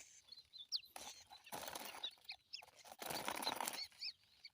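A small bird's wings flapping hard in two bursts of about a second each, the struggle of a bird stuck on a lime-coated trapping twig, with a few short bird chirps.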